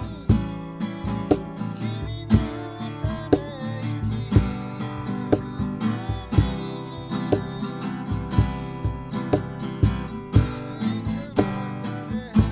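Song played on acoustic guitar, strummed over a steady beat about once a second, with little or no singing.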